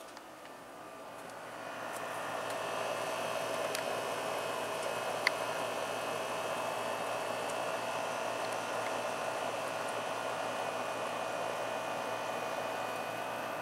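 A steady machine hum with a whine in it. It builds up over the first two seconds, then holds level, with one small click about five seconds in.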